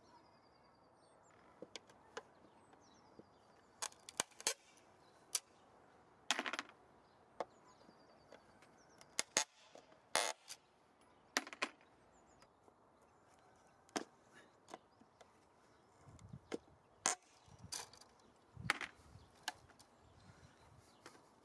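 Irregular sharp clicks and snaps of pliers working on a chain-link fence, gripping and pulling the wire and its metal fastenings at a fence post. A few of the snaps ring briefly.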